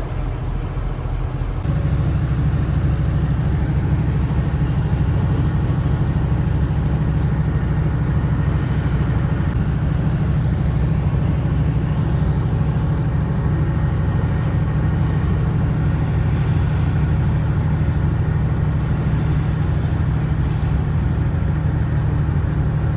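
Truck on the road, a steady low rumble of engine and road noise that gets louder about two seconds in and then holds even.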